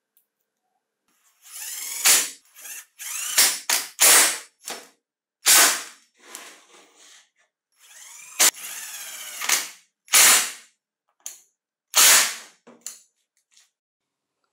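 Cordless power driver driving screws into a Ryobi ESK-3500 chainsaw's crankcase. It runs in a series of short bursts, its pitch climbing and falling in each, as each screw is run in and tightened.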